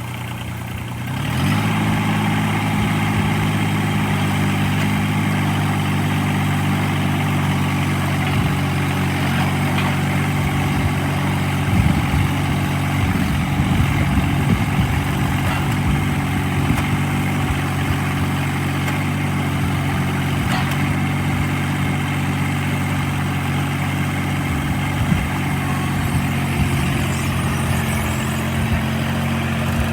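Toro Dingo 22324 mini skid steer's engine running. It picks up speed about a second and a half in, then runs steadily, with some irregular clatter about halfway through.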